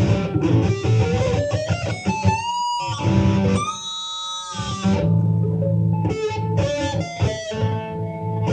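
Electric guitar playing a lead phrase high on the neck, with a note bent or slid slowly upward over the first two seconds and long held notes near the middle.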